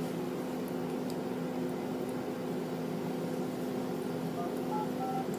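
A steady low hum, with three brief, faint touch-tone keypad beeps near the end as a phone number is dialed.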